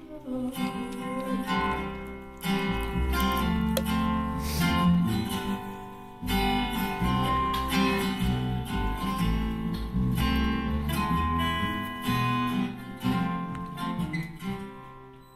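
Strummed acoustic guitar with upright bass playing an instrumental passage of a slow song between vocal lines. The bass comes in about two seconds in, and the playing fades down near the end.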